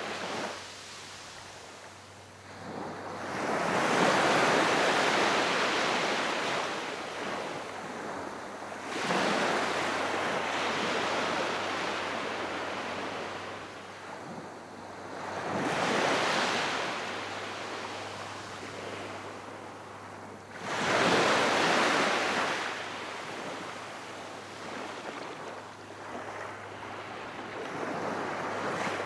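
Very calm sea waves breaking on the shore and washing back, four gentle swells that rise and fade, one every five to eight seconds.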